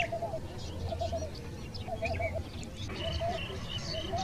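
Birds calling: a short, low warbling call repeated about once a second, with scattered higher chirps and trills from other birds over it.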